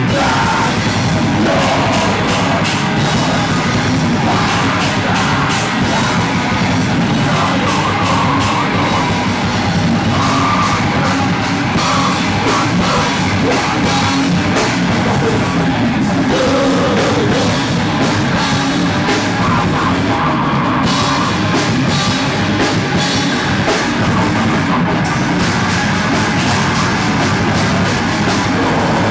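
Live rock band playing loudly: electric guitar over a full drum kit with frequent cymbal hits.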